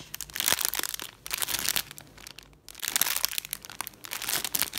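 Clear plastic packaging crinkling in several bouts as a peach squishy toy is handled and squeezed inside its bag.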